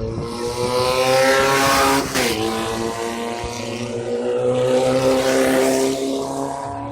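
Off-road race car's engine accelerating hard: its pitch climbs, drops sharply at a gear change about two seconds in, then climbs again and eases off near the end.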